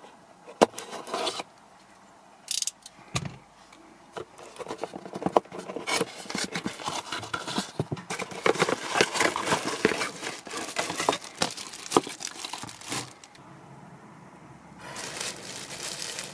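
A cardboard parts box slit open with a utility knife, its flaps pulled open, and a grille star drawn out of crinkling plastic wrap: scraping, tearing and rustling with a few sharp clicks near the start and dense crackling through the middle.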